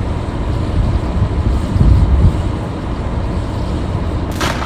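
Storm wind rumbling against the microphone as a steady low noise that swells now and then, with a sudden loud crash near the end.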